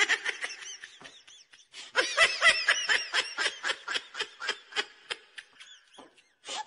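Laugh sound effect: a person laughing in quick ha-ha pulses, about four or five a second. One laugh trails off in the first second or so. Another starts loud about two seconds in and slowly fades, and a new burst of laughter starts near the end.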